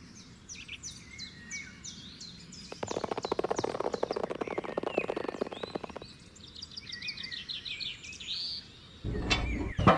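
Small birds chirping and tweeting in quick, repeated falling notes. About three seconds in, a rapid run of fine ticks lasts some three seconds, and a louder burst of noise begins near the end.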